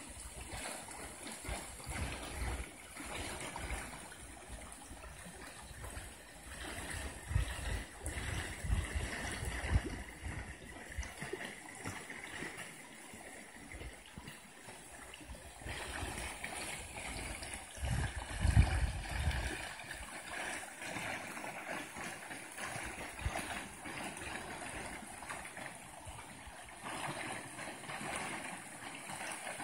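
Creek water flowing and spilling over a low concrete weir, a steady rushing and gurgling. A few bursts of low rumble rise above it, about a quarter of the way in and again a little past halfway.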